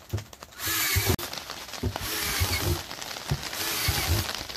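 Cordless drill with a 5/8-inch bit boring drainage holes through the plastic bottom of a food-grade barrel, the motor running in several short bursts.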